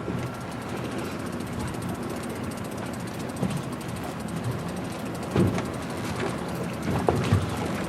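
Steady rumble and wind noise aboard a small fishing boat, with a few dull knocks about five and seven seconds in.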